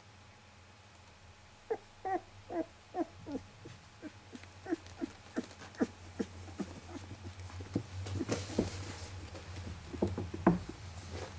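Young puppies giving a rapid series of short squeaks and grunts, about two a second, with bedding rustling about eight seconds in.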